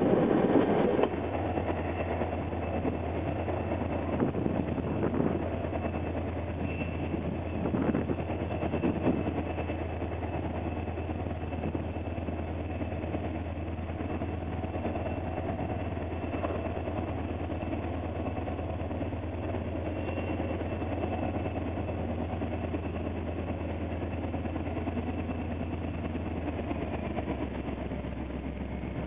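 Irish Rail 071 Class diesel locomotive's two-stroke EMD V12 engine running with a steady deep drone as the locomotive creeps slowly along the platform. In the first second, the last carriage of a departing train rumbles past.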